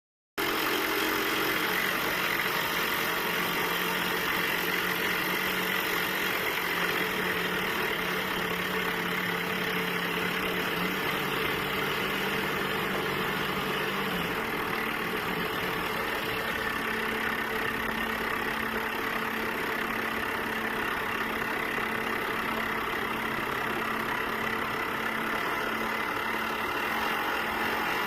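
Hydraulic rock-drilling machinery running steadily, a dense mechanical noise with a low hum that shifts pitch about 11 and again about 14 seconds in.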